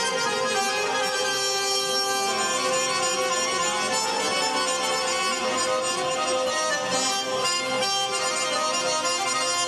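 Belly-dance music with long, held melodic notes at a steady level.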